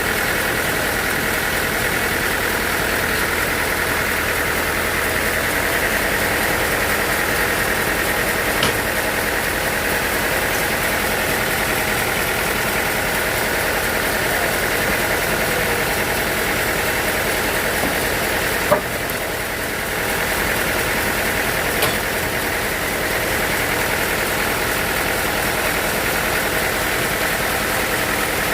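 Sawmill machinery running steadily: a continuous engine-like drone with a high whine over it. There are three short sharp knocks, the loudest about two-thirds of the way through.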